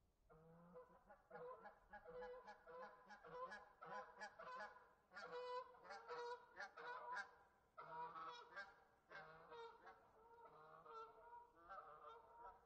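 A flock of geese honking: faint, many short overlapping honks in quick succession, busiest in the first half and thinning out after.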